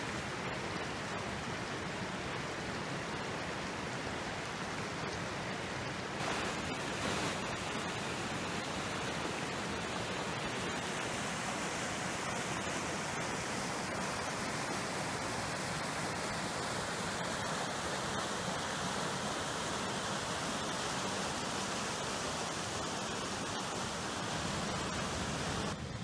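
River rapids: water rushing steadily over rocks, a dense, even noise with no pitch to it, briefly a little louder about six seconds in.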